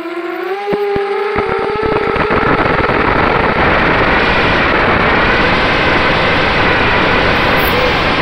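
FPV racing quadcopter's brushless motors and propellers whining, heard through its onboard camera, the pitch dipping and rising with the throttle and a few sharp ticks in the first second or two. After about two seconds a steady rush of wind over the microphone takes over as it flies fast and low, with the motor whine still faintly above it.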